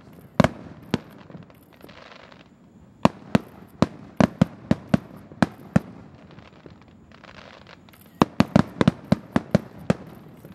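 Aerial fireworks going off in runs of sharp bangs, several a second, densest near the end, with short stretches of hissing between the runs.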